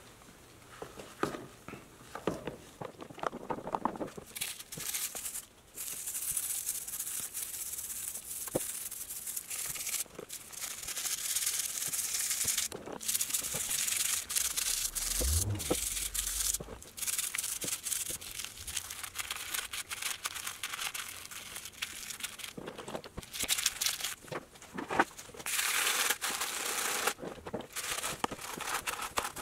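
Hand sanding of metal: repeated scratchy rubbing strokes in bouts broken by short pauses. A few knocks of handling come first, and a dull low thud sounds about halfway through.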